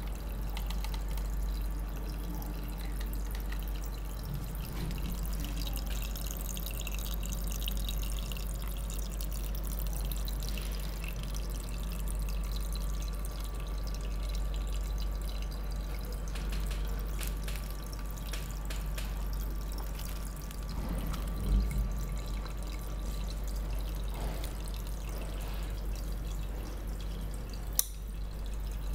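Water trickling and dripping steadily as the USB mini fish tank's pump circulates it back into the tank, over a steady low hum. A short knock comes about two-thirds of the way in, and a sharp click near the end.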